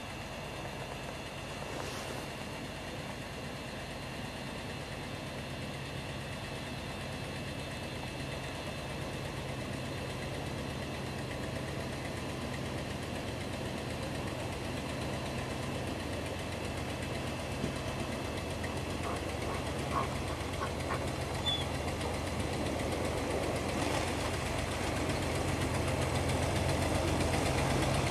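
Off-road 4x4 engine running steadily, growing gradually louder.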